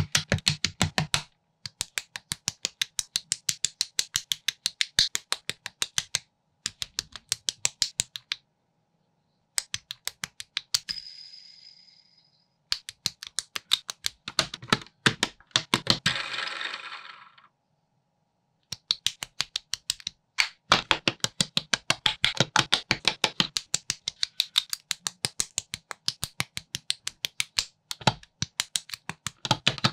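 Plastic building bricks of a Pantasy construction kit clicking and snapping together, several sharp clicks a second in quick runs, broken by short dead-silent gaps. A brief rustle comes about halfway.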